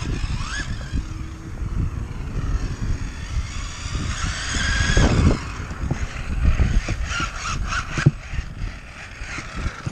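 3D-printed RC car driving: its brushless motor and plastic gearbox whine, rising and falling in pitch as it speeds up and slows several times, over a low rumble. A few sharp clicks come near the end.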